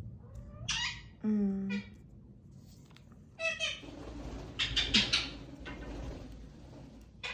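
Pet talking parrot making a few short chirping calls, some sweeping sharply upward in pitch, with a burst of rustling about five seconds in.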